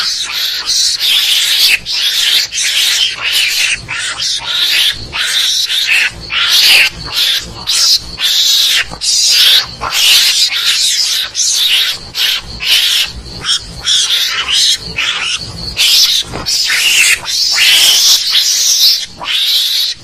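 Loud mongoose (garangan) calls played as a hunting lure: an unbroken run of harsh, raspy chattering in quick pulses.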